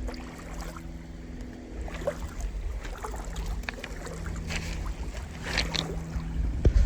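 Footsteps sloshing and crunching through a shallow gravelly creek, with wind rumbling on the microphone and a faint steady low hum; the stepping grows busier near the end.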